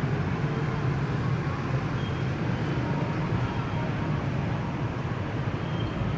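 Steady rumble of road traffic: engines and tyres on the surrounding streets.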